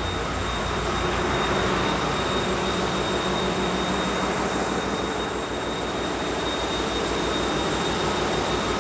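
Steady machinery noise of a car ferry's engine room: a dense, continuous low hum with a thin, constant high whine over it.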